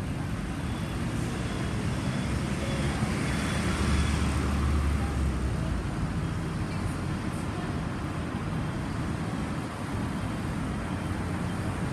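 Road traffic on a wide multi-lane city street: a steady hiss of passing cars, with a louder low rumble of a vehicle going by about two to five seconds in.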